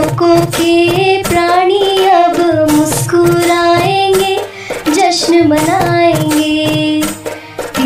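Hindi devotional bhajan: a woman's voice sings a gliding, ornamented melody over a steady drum beat and accompanying music.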